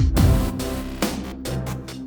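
Electronic dance music with a heavy bass drop and drum hits at the start, then a steady synth and bass line.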